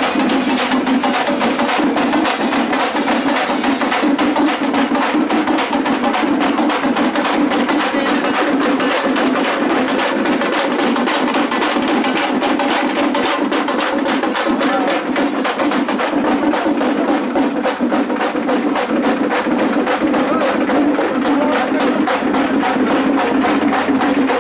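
Hand drums beaten in a loud, fast, unbroken rhythm, many strikes a second.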